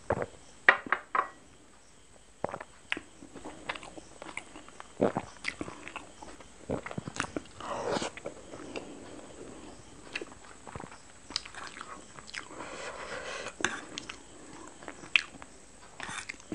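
Close-miked eating sounds: wet chewing, lip smacks and mouth clicks, irregular throughout, with a quick run of sharp clicks about a second in.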